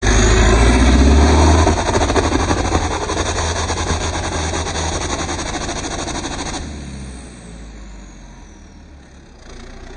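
Off-road 4x4 buggy's diesel engine running hard at high revs under heavy load as it climbs a muddy slope, its tyres spinning in the mud. The sound drops off sharply about two-thirds of the way in.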